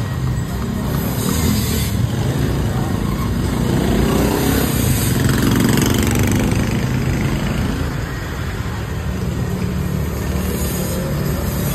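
Street traffic: motor vehicle engines running steadily, with one vehicle passing close and loudest about halfway through.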